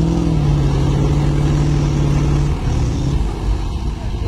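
Engine running hard at a steady pitch while a tractor tows a hay-laden truck by a cable, with a brief dip in pitch about two and a half seconds in.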